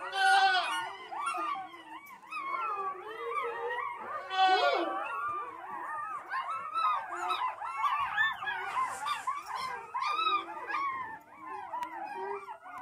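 A litter of newborn half-Akbash, Great Pyrenees and Anatolian shepherd cross puppies whimpering and crying together, many thin, wavering cries overlapping without a break.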